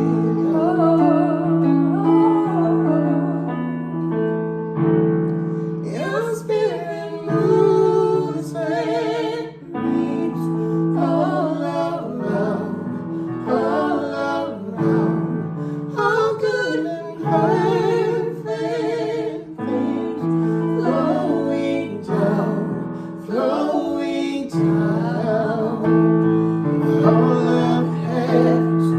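Music: a woman singing a slow song over piano or keyboard chords.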